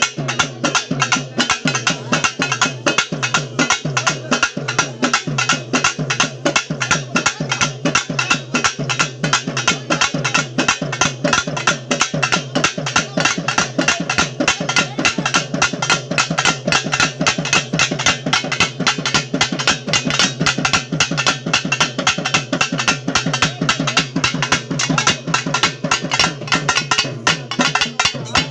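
Pambai, the Tamil pair of cylindrical folk ritual drums, beaten with sticks in a fast, driving rhythm of rapid strokes without a break.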